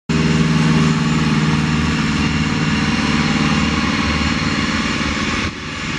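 An engine running at idle: a steady low drone with a broad hiss above it. About five and a half seconds in the sound cuts abruptly to a quieter, thinner engine drone.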